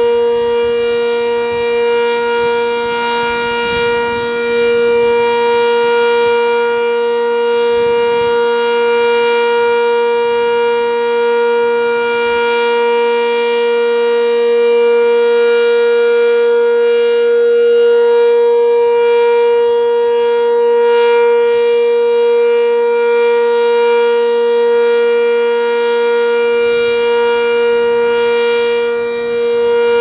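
Sentry 10V outdoor warning siren sounding a loud, steady tone at constant pitch during its scheduled monthly test, swelling slightly in loudness now and then.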